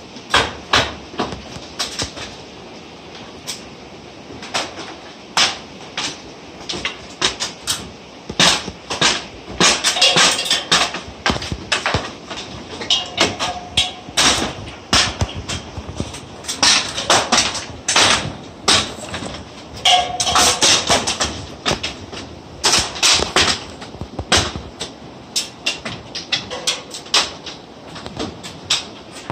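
Irregular sharp knocks and bangs from work on a covered bridge's old wooden roof timbers, coming at times in quick runs, with a couple of brief squeaks.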